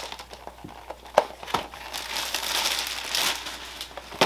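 Packing material crinkling and rustling as a boxed model train car is unwrapped, with a few sharp handling knocks.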